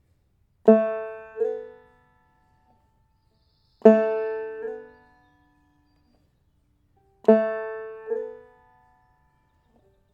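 Five-string banjo played three times with the clawhammer slide: the third string is struck at the second fret, and while the note still rings it slides up to the fourth fret, about a second after the pluck. Each note then fades out.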